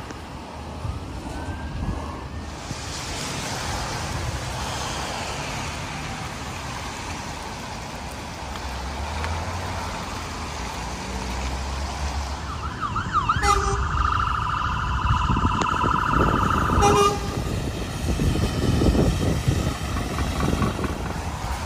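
Fire engine siren sounding for about four seconds past the middle, starting with a few quick rising glides, then holding a steady rapidly pulsing tone before cutting off suddenly. Around it is a steady low rumble of vehicle and wind noise, heavier after the siren stops.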